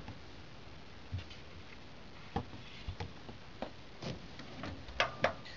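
Scattered light clicks and knocks from hands handling a camera and computer hardware while a graphics card is worked into its PCI Express x16 slot, with two sharper clicks near the end.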